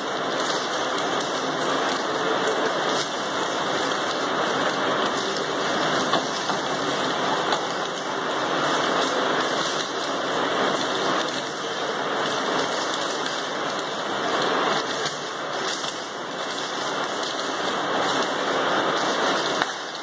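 A steady, rain-like hiss with no clear strokes, rising and falling a little in loudness.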